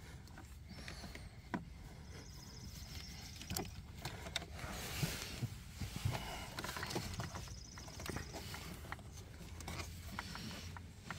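Faint handling noise from work on a car dashboard: scattered clicks and taps of plastic trim and parts, with a short stretch of rustling a few seconds in.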